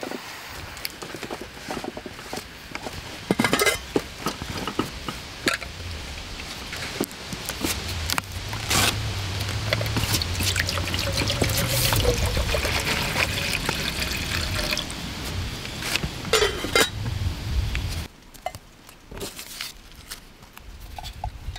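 Water being poured for tea, a steady running pour for about ten seconds in the middle, with scattered knocks and clinks before and after.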